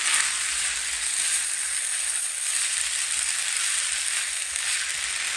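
Pasta and vegetables sizzling steadily in a frying pan, stirred with a spatula.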